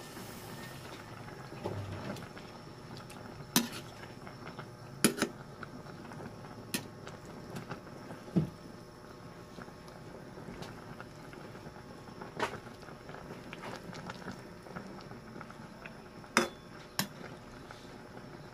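Pot of vegetable soup boiling on a stove, a steady bubbling, with about eight sharp clinks of a metal ladle against the aluminium pot as it is stirred.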